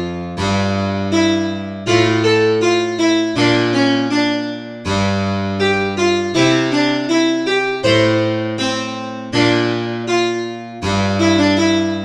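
Two-voice counterpoint played on a keyboard: a low line of long held notes, changing about every one and a half seconds, under a faster upper melody of shorter notes. It is an example of simple counterpoint, in which the upper melody would not sound right as the lower one under the rules of strict counterpoint.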